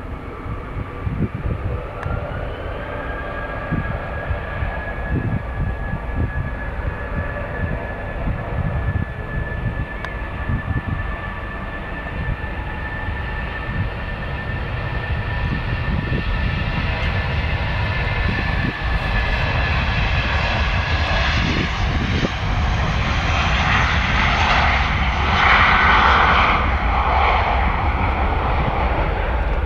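Airbus A320-family airliner's twin jet engines spooling up to takeoff thrust: a whine that rises about two seconds in and then holds steady, while the engine noise builds through the takeoff roll and is loudest near rotation toward the end.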